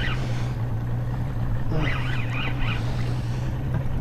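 Large spinning reel cranked under load in short spells as a fish is pumped in, its gears giving a whine that rises and falls with each turn of the handle. Under it, the steady low drone of the boat's outboard engine.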